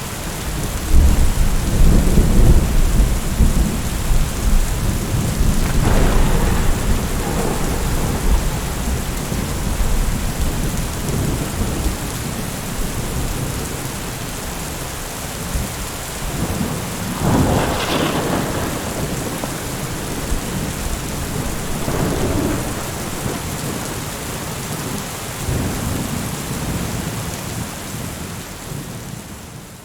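Thunderstorm: steady rain falling, with rolling thunder. A long low rumble fills the first few seconds, a sharper thunderclap comes about eighteen seconds in, and fainter rolls follow before it all fades out at the end.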